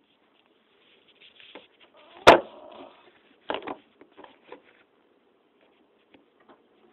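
Handling noise from the camera being set up: rustling and light clicks, one sharp loud knock about two seconds in, two more bumps a second later, then a few faint ticks.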